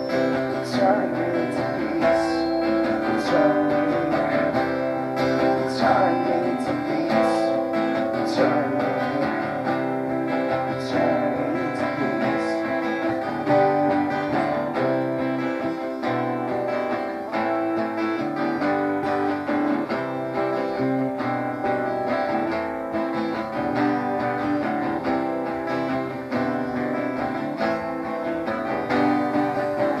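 Two acoustic guitars playing a song together live, a steady stream of picked and strummed notes.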